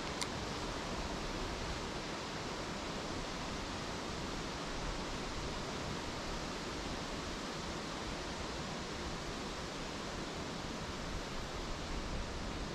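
Steady, even rush of flowing creek water, with one faint click right at the start.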